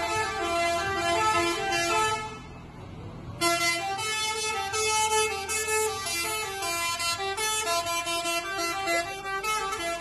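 Truck's musical 'telolet' (basuri) air horn playing a stepping melody of several notes. It breaks off about two seconds in and starts again about a second later, over a low engine rumble.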